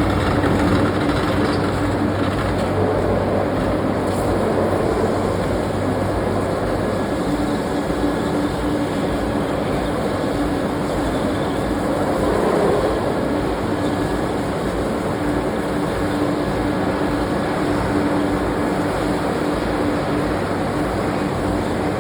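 Steady, loud running noise of forging-shop machinery, a dense rumble with a low hum, with no distinct hammer blows standing out.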